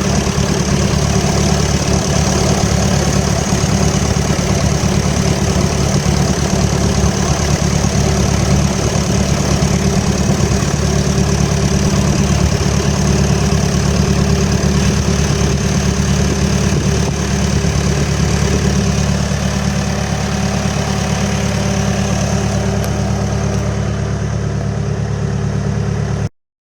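Diesel engine of a New Holland B100B backhoe loader idling steadily. It cuts off suddenly near the end.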